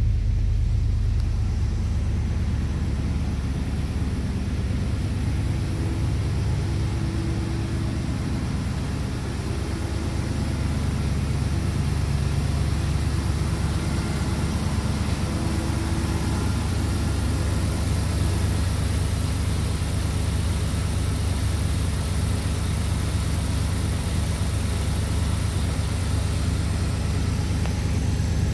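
1996 Dodge Ram 1500's 5.2-litre Magnum V8 engine idling steadily.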